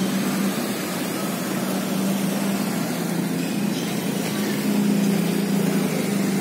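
An engine running steadily: a low, even drone holding one pitch, swelling slightly about five seconds in.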